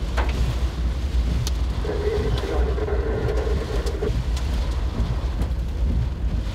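Steady low rumble of storm wind and driving noise inside a moving vehicle in a severe thunderstorm, with scattered sharp ticks. A steady mid-pitched tone sounds for about two seconds near the middle.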